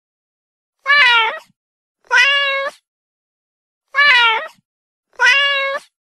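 Domestic cat meowing four times, as two meows followed by the same two again. Each meow lasts just over half a second.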